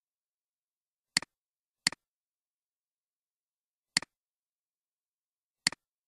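Four computer mouse clicks: two close together about a second in, one near the middle, one near the end. Each is a sharp double click of button press and release.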